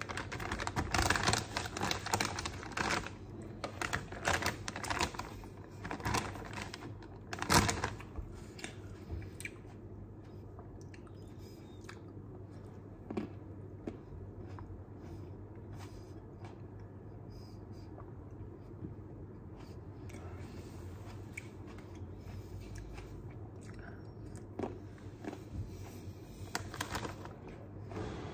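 Thin plastic grape bag crinkling and rustling as a hand reaches inside it. The crinkling comes in a run of bursts for the first several seconds, loudest about eight seconds in, then drops to occasional small rustles, with another burst near the end.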